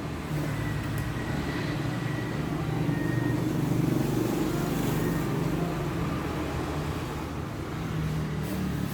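Steady low mechanical hum of a running engine or motor, swelling slightly about halfway through.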